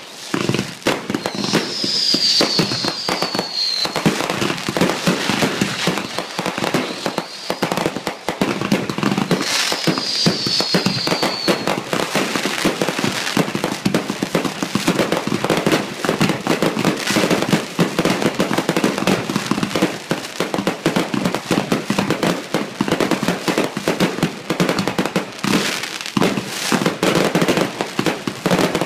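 Fireworks finale: a rapid, unbroken barrage of bangs and crackles from many overlapping aerial bursts. Two long falling whistles cut through, about a second and a half in and again about nine seconds in.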